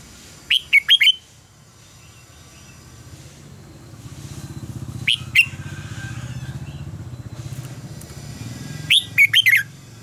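Red-whiskered bulbul singing three short phrases of loud, quick whistled notes: one about half a second in, a brief one in the middle, one near the end. Under the song, a low steady hum swells from about the middle.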